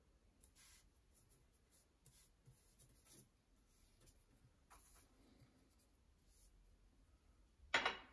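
Faint, soft swishes of a watercolour brush stroking paper, a few scattered strokes. A brief, much louder knock comes just before the end.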